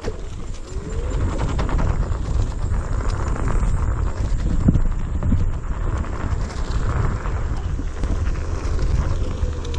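Onewheel electric board rolling fast over a dirt forest trail: a continuous rough rumble with irregular knocks and rattles as the tyre and board go over ruts and roots. A faint motor whine rises about half a second in and falls near the end.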